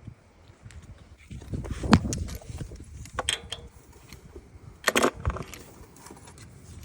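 Metal tools and parts clinking and knocking as they are handled during lawnmower maintenance: a few separate sharp clinks over low handling rumble.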